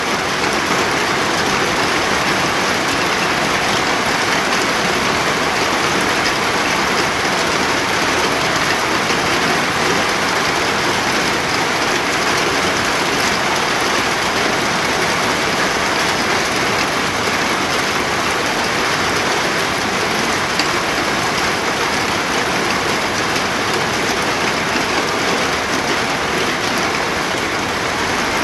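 Steady heavy rain, a dense even hiss of drops falling on surfaces.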